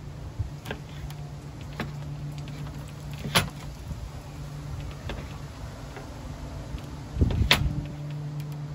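Chef's knife slicing through raw butternut squash and knocking on a plastic cutting board: a few sharp knocks a second or two apart, the loudest about three seconds in and a heavier cluster near the end. A steady low hum runs underneath.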